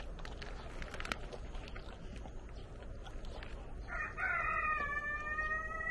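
A rooster crowing once, one long drawn-out call starting about four seconds in. Before it, short clicks and smacks of dogs taking and chewing treats from a hand.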